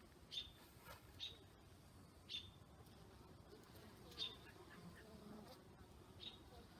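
Honeybees buzzing faintly, a wavering drone that grows plainer in the second half. Five short, high chirps stand out above it, spaced a second or two apart.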